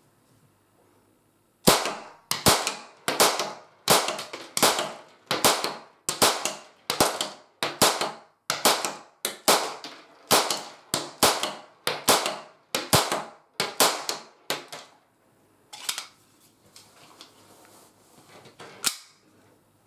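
Marushin M9 model gun firing cap-powder cartridges in a fast string of sharp cracks, roughly two a second, with the blowback slide cycling on each shot. The string stops about three-quarters of the way in, followed by two more separate sharp reports. Each report has a short echo from a small room.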